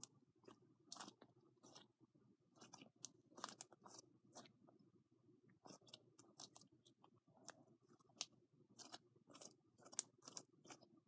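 Faint, irregular crackles and clicks of things being handled close to the microphone, the sharpest click about ten seconds in.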